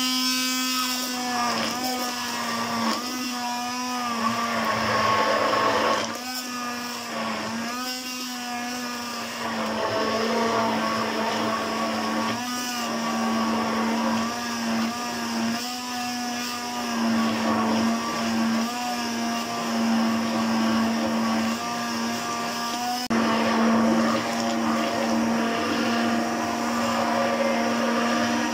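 Electric hand blender running steadily, its motor humming with one steady pitch as the blade churns fresh cream and cold water into butter. The sound wavers slightly as the blade moves through the cream and grows a little louder late on.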